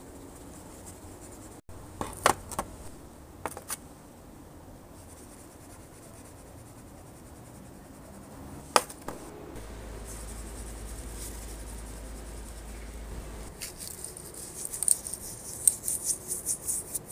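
Quiet background with a few sharp clicks of small cups and utensils being handled on a table, then a run of quick irregular clicks and scrapes near the end as a marinade is stirred in a plastic bowl.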